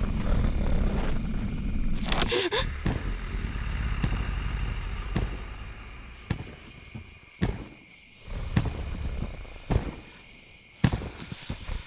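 Horror sound effects: a heavy low rumble that ends in a sharp crash about two seconds in and slowly dies away, then scattered sharp cracks and thuds over a faint steady high hum.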